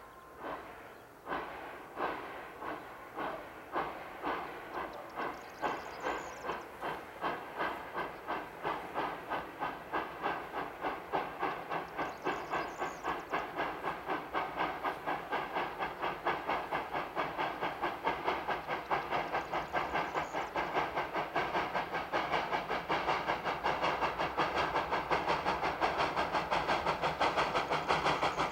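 Steam locomotive OL49 pulling away with a train, its exhaust chuffing in an even beat that quickens steadily and grows louder as it approaches.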